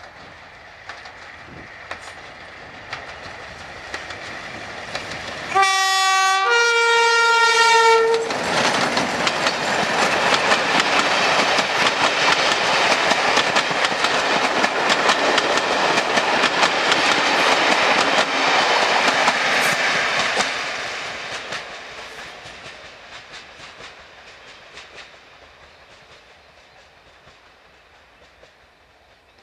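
Class 31 diesel locomotive hauling coaches sounds its two-tone horn about six seconds in, a short lower note then a longer higher one. It then passes close by with its engine running and the wheels clicking over the rail joints, and fades as the train runs away.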